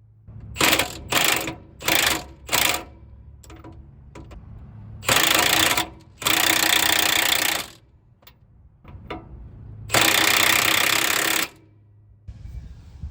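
Impact wrench run in bursts: four short quick bursts, then three longer runs of a second or more each.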